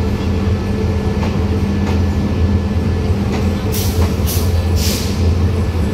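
Diesel train idling with a steady low hum. A little past halfway come about four short hisses of air, one after another.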